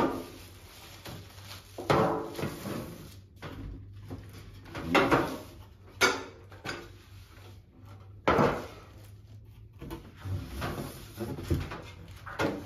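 Plastic wrapping rustling and crinkling, with clunks of the trolley's trays being handled and set down, as the trays are lifted out of the carton and unwrapped; about five louder bursts come and go.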